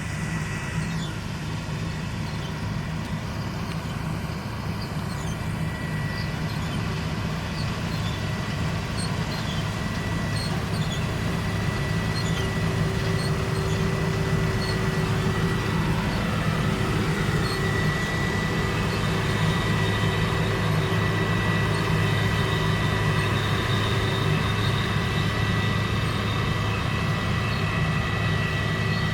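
New Holland CR960 combine harvester running under load while cutting cereal: a steady, deep engine drone with a thin, steady high whine above it, growing a little louder about ten seconds in.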